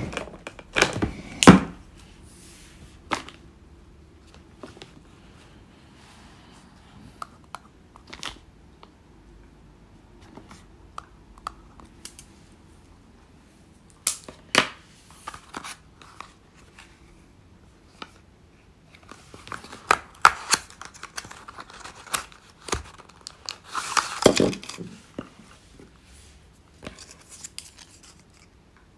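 Plastic and paper medicine packaging being handled and torn open: crinkling, rustling and sharp tearing rips in several short spells, the loudest about a second and a half in and another cluster around twenty-four seconds in.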